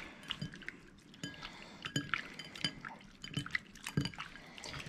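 Raw fish fillets being squished and turned by hand in a bowl of hot sauce: wet squelching and dripping with irregular small clicks.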